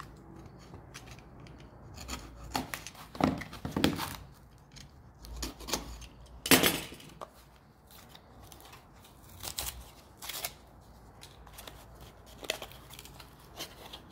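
Hands opening the packaging of a small HO-scale model house: irregular rustling, rubbing and tearing with scattered clicks and knocks, the loudest about halfway through.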